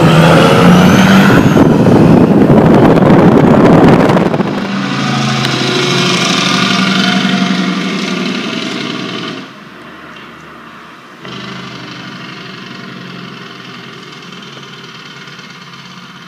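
Semi-truck diesel engines using Jake (compression-release) brakes: a loud, rapid rumble from a truck close by for about four seconds, then a quieter steady engine-brake drone with tyre hiss on a wet road, which drops away about nine seconds in and comes back lower.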